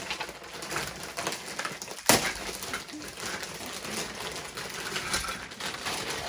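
Plastic toy parts and packaging being handled and worked free: rustling and small clicks, with one sharp knock about two seconds in.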